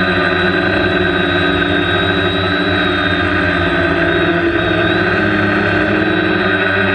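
Multirotor drone's electric motors and propellers running steadily, a loud even buzz heard from the onboard camera in flight.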